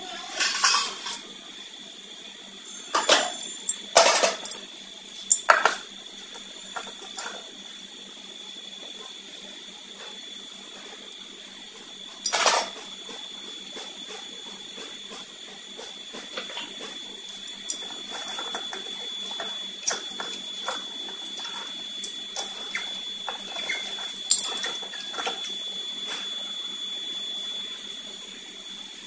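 Cooking oil heating in a wok: a steady faint hiss with a thin high tone, broken by a few sharp crackles, most of them in the first six seconds and one about twelve seconds in.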